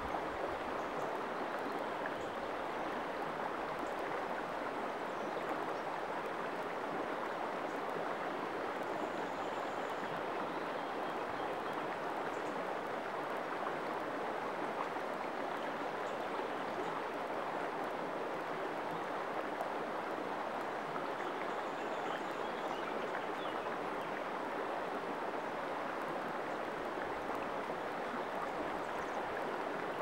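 Shallow, clear river flowing over pebbles and rocks: a steady, even rush of running water.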